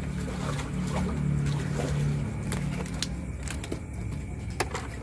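Background music with low notes that change pitch in steps, over a steady hum of ambient noise, with several sharp clicks, the loudest near the end.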